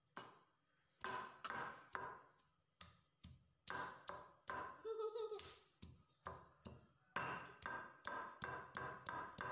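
Stone pestle pounding and crushing garlic cloves on chili spice paste in a flat stone mortar (Indonesian cobek and ulekan): repeated knocks of stone on stone, about two a second, starting about a second in.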